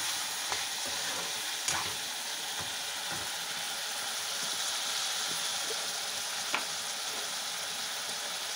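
Duck meat and onions sizzling steadily in hot oil in an iron kadai, with a steel spoon stirring and clicking against the pan a few times.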